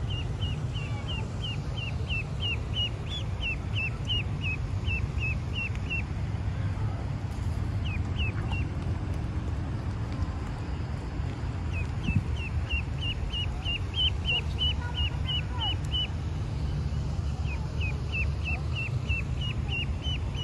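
Duckling peeping: runs of short, high-pitched peeps, about three or four a second, that stop and start again several times, over a steady low rumble.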